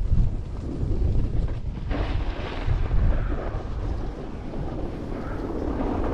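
Wind buffeting the camera microphone while snowboarding downhill, with the board's edges hissing and scraping over groomed snow. The scrape swells about two seconds in and again near the end.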